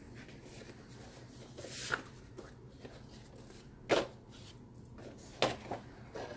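Sheets of glossy paper handouts and magazines being shuffled and gathered into a stack, with rustling and a few sharp taps, the loudest about four seconds in and another a second and a half later.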